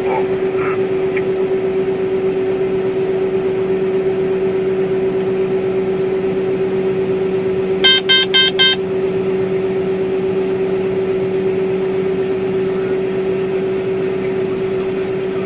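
John Deere combine harvester running steadily while unloading grain through its auger, a constant droning hum heard from the cab. About eight seconds in, a quick run of about five short electronic beeps.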